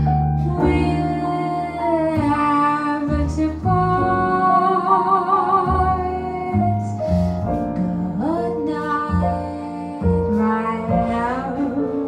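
Live jazz ballad: a female vocalist sings long, held phrases with vibrato, accompanied by grand piano and walking upright bass.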